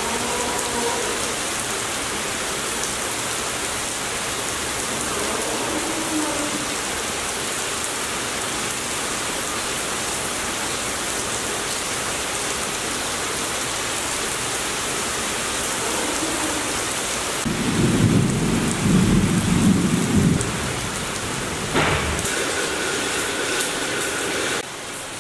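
Rain falling steadily on paving and ground, an even hiss. About two-thirds of the way through, a loud low rumble lasts about three seconds, and a sharp knock follows shortly after.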